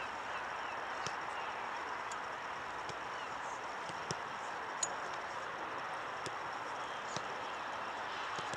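Steady outdoor background noise with a few faint single clicks.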